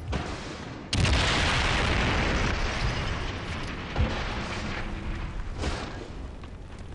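German 88 mm anti-aircraft gun firing: a loud blast about a second in that trails off into a long rumble, with further sharp reports near four and five and a half seconds in.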